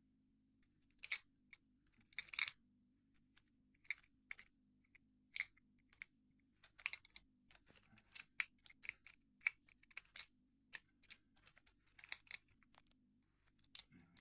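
Irregular small metallic clicks and taps of homemade picks and a tension wrench working the pin stack of a Squire 660 padlock, scattered at first and coming thicker from about halfway.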